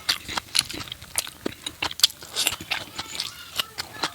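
Close-up chewing of fatty pork curry and rice: wet mouth clicks and smacks, several a second, irregular.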